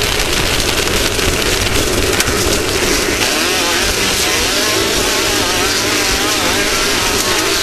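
Off-road race vehicle engine revving up and down, its pitch wavering most clearly in the second half, over a loud steady rushing noise.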